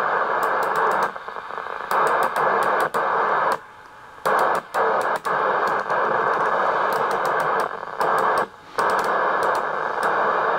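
Amstrad CB 901 CB radio hissing with receiver static from its speaker, with quick clicks as the channel selector knob is stepped through the channels. The hiss cuts out briefly a few times, about three and a half seconds in and again near the end.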